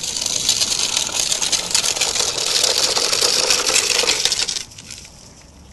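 Hurried footsteps crunching on a gravel path, a fast, dense crunching that stops about four and a half seconds in.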